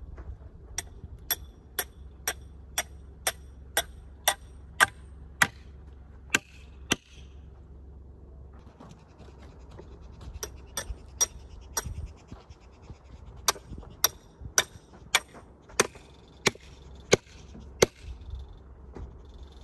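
Hammer striking a steel brace pin into the wooden H-brace: sharp ringing metal-on-metal blows, about two a second, in three runs with short pauses between.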